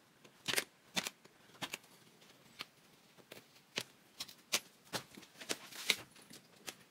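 Staples being pried out of the underside of an upholstered chair seat with a thin metal tool, and the black dust-cover fabric pulled loose. The result is a run of irregular sharp clicks and snaps, the loudest about half a second in, at one second, and near the end.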